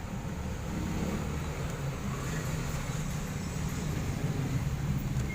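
A motor vehicle's engine running with a steady low rumble, growing a little louder near the end.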